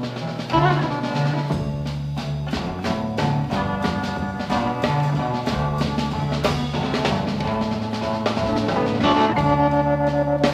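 Electric blues trio playing an instrumental break: two electric guitars, one holding a repeating low bass line under the other's lead notes, over a steady drum-kit beat, with no singing.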